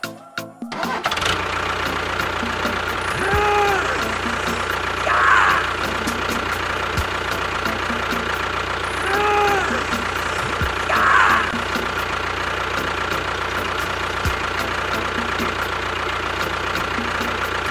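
A small engine running steadily, most likely a mini tractor's, starting about a second in. A short squeal and a rasp recur about every six seconds.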